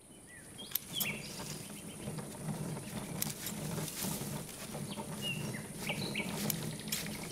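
Garden ambience of birds chirping in short falling chirps over a steady hiss and low hum, fading in at the start, with a few scattered sharp clicks.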